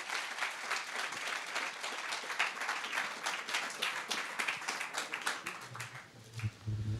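Audience applauding, the clapping thinning out and fading away about five or six seconds in.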